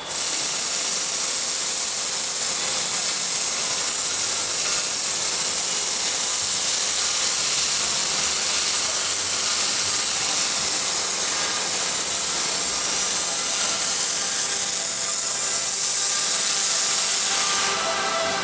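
Pressure washer jet blasting spray-paint graffiti off a stone wall: a loud, steady hiss of water spray that drops somewhat in level near the end.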